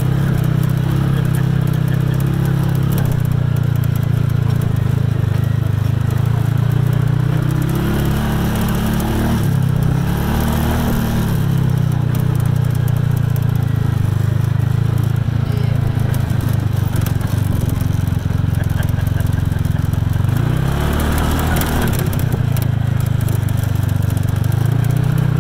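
A UTV's engine running steadily under way on a dirt track. Its note dips and climbs again with the throttle about ten seconds in and again about twenty seconds in, over a constant hiss and rattle of the ride.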